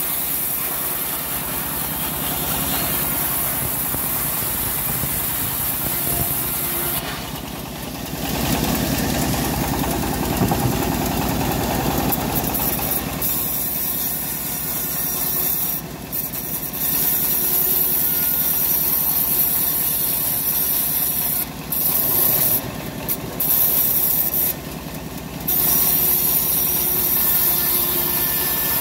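Homemade bandsaw mill ripping a slab of old teak lengthwise: a steady, loud sawing noise. The cutting sound drops away briefly a few times, once about a quarter of the way in and several times in the second half.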